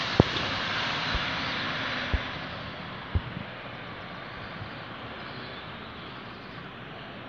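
Steady road and tyre noise of a moving car, fading after about two and a half seconds as the car slows, with a few dull knocks in the first few seconds.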